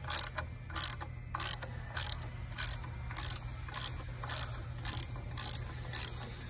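Hand ratchet and socket clicking in short back-and-forth strokes, about two a second, as it turns the pusher bolt of a T-bar puller to push the rear freeze plug into the engine block.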